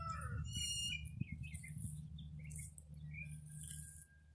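Sulcata tortoises biting and chewing fresh-cut grass, heard as short crisp bursts, while small birds chirp in short calls and a steady low hum runs underneath. Right at the start a call slides down in pitch.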